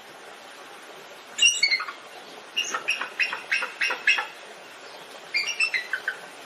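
Bald eagle calling: three bouts of rapid, high-pitched chattering notes, over a steady hiss. The first and last bouts step down in pitch, and the middle one is a longer run of about eight notes.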